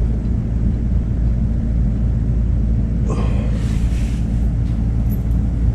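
Steady low machine hum made of several even tones, with a brief rustling noise about three seconds in.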